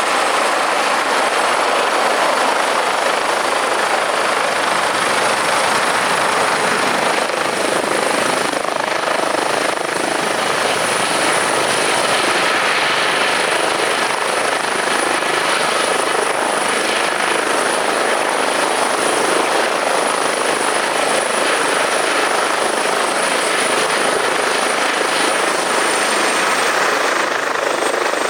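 Airbus Helicopters H145 twin-turbine helicopter coming in to land: steady rotor and engine noise with a thin high turbine whine that dips slightly in pitch near the end.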